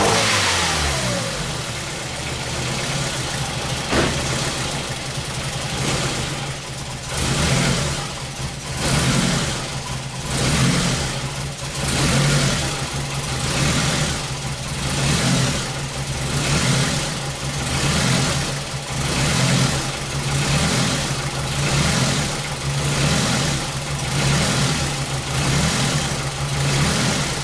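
2001 Ford Focus Zetec four-cylinder engine running rough with the cam sensor unplugged, its speed sagging and picking up again about once a second: the engine is misfiring. One sharp click about four seconds in.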